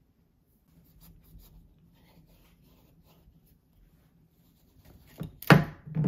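Kitchen knife sawing into the hard rind of a spaghetti squash on a wooden cutting board. Faint scraping at first, then a few loud strokes near the end as the blade cuts through.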